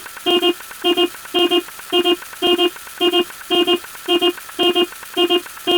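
Telephone ringing with an electronic ring tone: short double beeps of the same pitch, repeating evenly about twice a second.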